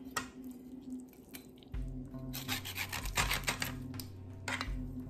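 Serrated kitchen knife rasping through raw turkey wing in a few short scraping strokes, mostly from about two seconds in, over background music with a low bass line.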